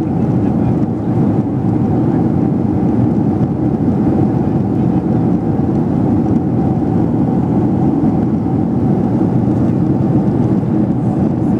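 Steady, even drone of airplane cabin noise heard from a passenger seat while the plane is on its approach to land.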